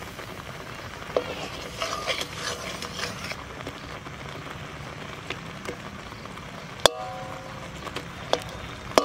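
A metal spatula stirs and scrapes through heating milk and khoya kheer in a metal wok, over a low steady sizzle from the pan. About seven seconds in there is a sharp metallic knock with a brief ring, the spatula striking the wok.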